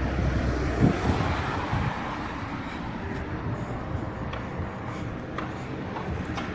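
A motor vehicle passing on a town street, loudest in the first second or two and then easing into general street noise.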